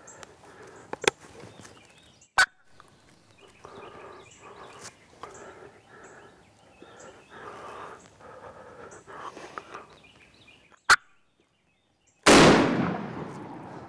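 A wild turkey calls in a run of repeated bursts, with a few sharp clicks among them. After a short hush, one shotgun shot goes off near the end, very loud, and rings out as it fades.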